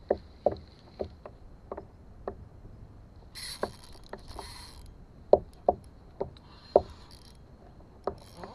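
Irregular hollow knocks and slaps against a plastic fishing kayak's hull on wind-chopped water, two or three a second, with a brief hiss about three and a half seconds in.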